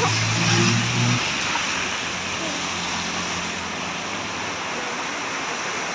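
Heavy rain falling steadily, an even hiss throughout. A low engine hum underneath drops away about a second in.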